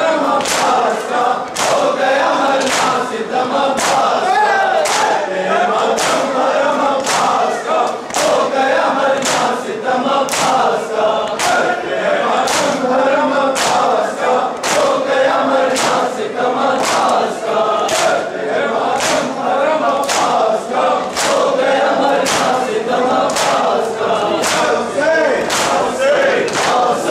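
A crowd of men chanting a noha in unison with rhythmic matam, open-palm chest-beating that lands as sharp slaps about three every two seconds.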